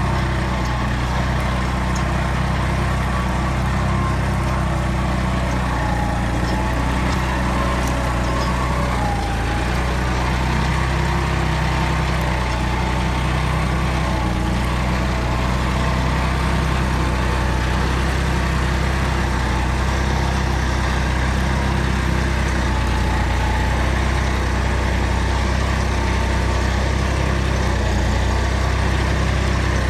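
John Deere 5310 tractor's three-cylinder diesel engine running steadily under load as it pulls a reversible mould-board plough through wet soil.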